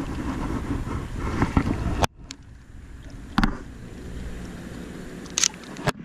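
Wind buffeting the microphone, a low rumble that drops off abruptly about two seconds in, leaving a quieter hiss with a few brief knocks.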